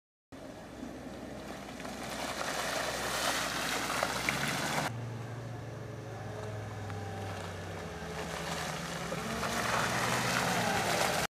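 A 4x4's engine revs, getting louder, until a sudden cut about five seconds in. Then a Land Rover Discovery's engine pulls it through deep mud ruts, growing louder as it comes closer.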